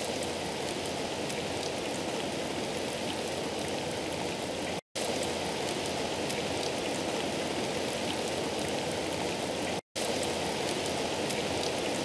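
Rain sound effect: a steady hiss of rainfall. It cuts out briefly twice, about five seconds apart.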